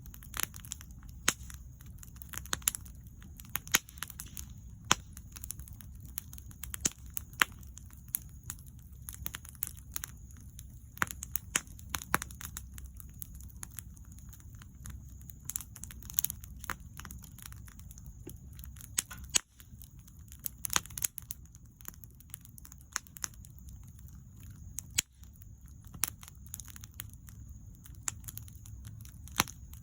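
Wood bonfire crackling: irregular sharp pops and snaps, many a second at times, over a steady low rumble.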